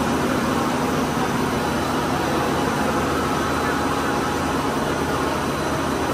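Steady machine noise of a plastic pipe extrusion line running, a continuous low hum under a broad even whir.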